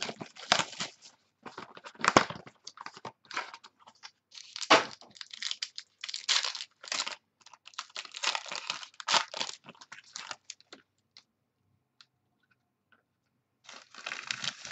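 Football trading cards and their pack wrapping being handled: irregular crinkling and rustling, with a pause of a couple of seconds near the end before the rustling resumes.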